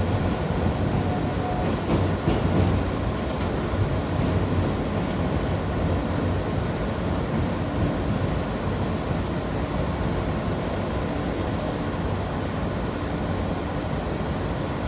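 R train subway car running through the tunnel, heard from inside the car: a steady rumble of wheels on rails with a low motor hum, and a few light clicks about two and eight seconds in.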